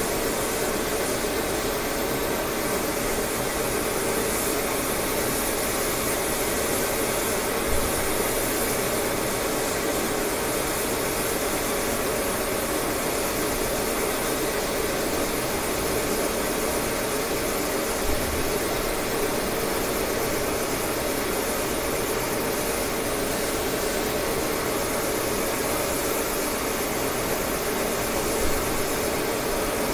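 Steady roar of a multi-flame oxyacetylene fusing torch playing over a spinning part, with the lathe running underneath, as the sprayed powder coating is being fused.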